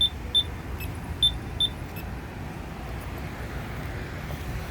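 Accessible pedestrian signal push button giving short, high-pitched beeps, about four in the first two seconds, then stopping, over a steady low rumble of traffic.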